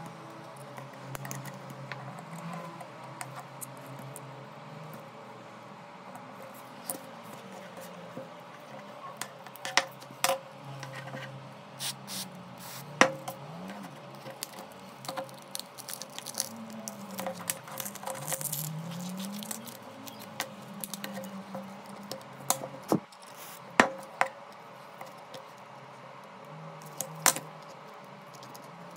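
Small hand tools and phone parts clicking and tapping against a OnePlus 8's glass and frame as it is worked on, irregular light clicks with a few sharper, louder taps, over a faint low hum.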